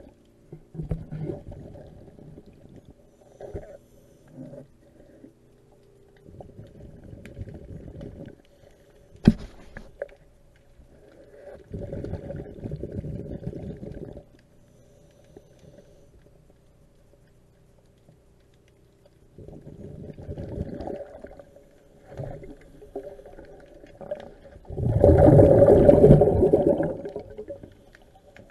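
Scuba diver breathing through a regulator underwater: bubbling, rumbling bursts of exhaled air about every six seconds, the last one the loudest. A faint steady hum runs underneath, and there is one sharp click about nine seconds in.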